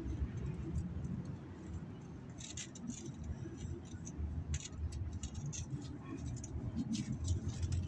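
Scattered small scrapes and clicks of a hand digging in loose soil, starting a couple of seconds in, over a low rumble.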